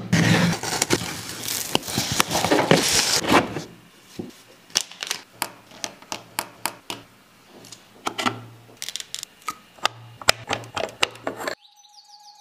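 Unboxing handling sounds: the rustle and scrape of a cardboard shipping box and its packing being opened, then a run of sharp clicks and taps as small electronic clock parts and plastic bags are handled and set down on a wooden desk. A faint steady tone comes in near the end.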